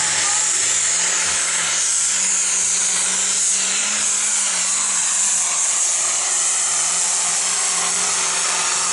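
Modified pulling tractor's engine running flat out under full load as it drags a weight-transfer sled down the track: a loud, steady, unbroken sound with a strong high hiss.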